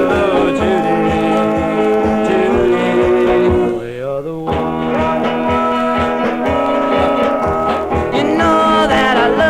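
Early-1960s rock and roll record played from a vinyl 45: a band with a steady drumbeat under a pitched lead line, which dips and slides upward about four seconds in.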